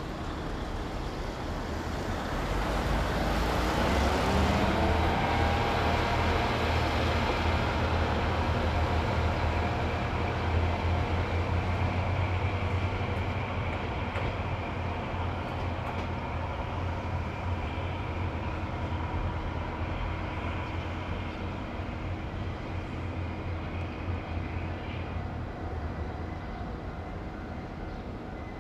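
Two-car KiHa 20 series diesel railcar set pulling away: its diesel engines rev up with a rising pitch a few seconds in. The engine sound then slowly fades as the train moves off into the distance.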